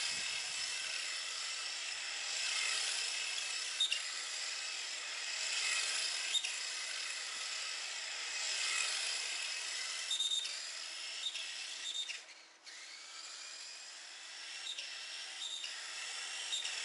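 Whine of a Tamiya TT-01 RC car's Light-Tune electric motor and drivetrain as it laps, the pitch rising and falling as the car speeds up and slows, with a few small ticks. The whine drops away briefly about twelve seconds in, then picks up again.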